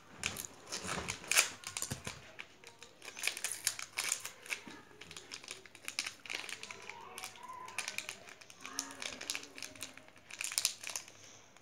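Small plastic blister packet crinkling and crackling in irregular bursts as it is pried and pulled open by hand.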